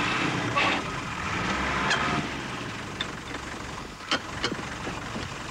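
Tyre change on a military Land Rover: scuffing on a gravel track as a wheel is moved, then a few sharp metal knocks from the wheel and wheel brace.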